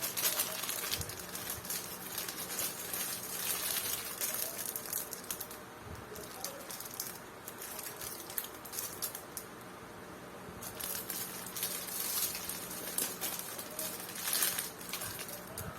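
Crinkling of plastic packaging and small clicks of model kit parts being handled, in irregular bursts, over a faint steady hum.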